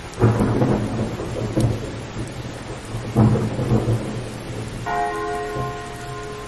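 Two deep rumbling crashes about three seconds apart, then a large church bell struck once and ringing on with several steady overtones.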